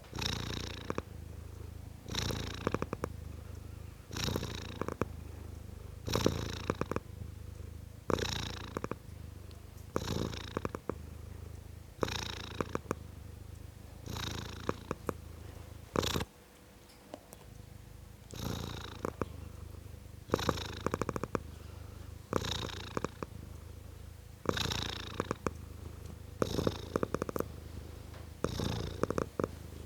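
A tomcat purring: a steady low rumble that rises in louder pulses about every two seconds, with a short break a little past halfway.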